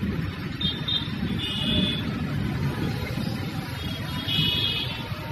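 Road traffic on a rain-wet street: a steady low rumble of passing cars and motorcycles, with two brief high-pitched tones, about a second and a half in and again near the end.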